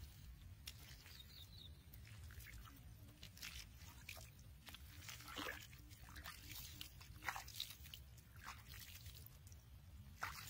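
Faint, scattered crunching and scraping of damp, sandy soil being pressed and handled.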